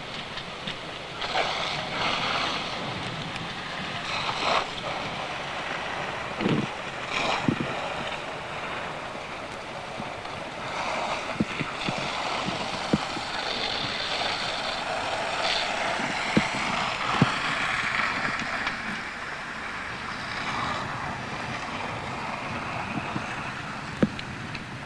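Large fire burning: a steady rushing noise broken by scattered sharp cracks and pops.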